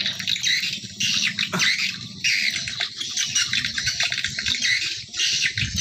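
Many small birds chirping and twittering in quick, short, high notes.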